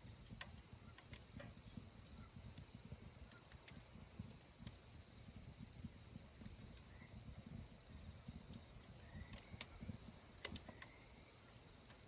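Wood fire crackling in a steel fire pit, with scattered sharp pops, the loudest about ten and a half seconds in, over a low wind rumble on the microphone and a steady high-pitched insect trill.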